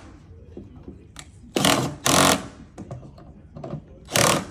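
Power drill driving screws into particleboard bed panels in two short runs, a longer one about a second and a half in and a brief one near the end.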